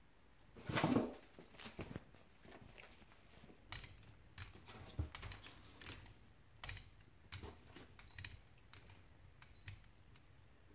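A macaque monkey rummaging in a cardboard box of vegetables: irregular rustles, crackles and small clicks of cardboard, paper packing and cauliflower being handled, with the loudest rustle about a second in.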